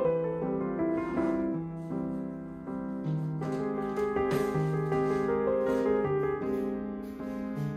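Background music led by piano, with held notes overlapping one another in a gentle, steady flow.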